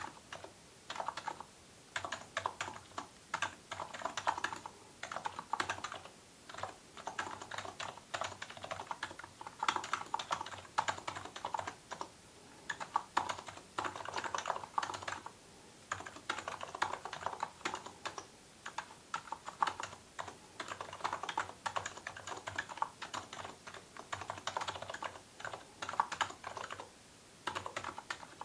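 Continuous typing on an electrostatic capacitive (Topre-type) keyboard: runs of rapid, soft keystrokes broken by short pauses every few seconds.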